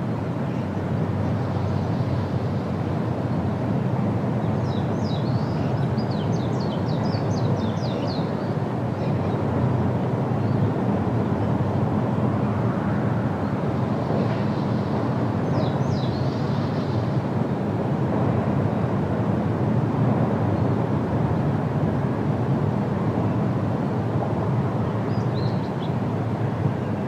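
Steady, deep rush of water from the Rhine Falls, even and unbroken. Birds chirp briefly over it a few times.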